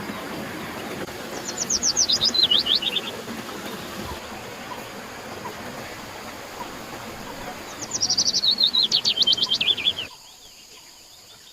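A songbird singing twice: each phrase a fast trill of sharp notes that steps down in pitch, about two seconds long, the first near the start and the second near the end. Under it a steady rush of flowing water, which cuts off abruptly shortly before the end.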